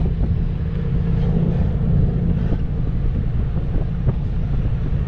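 Pickup truck engine and exhaust running with a steady low drone while the truck rolls slowly, with wind rumbling on the microphone.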